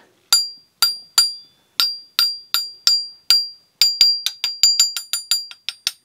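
Solid one-piece stainless steel Warner 10-in-1 painter's tool tapped repeatedly on its handle with another metal scraper blade, each tap ringing with a clear high tone. About twenty taps, about two a second at first, then quickening to several a second from about four seconds in.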